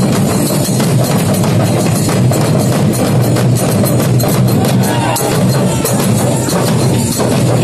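A group of large barrel drums, slung at the waist and struck with sticks, played together in a fast, dense, unbroken rhythm.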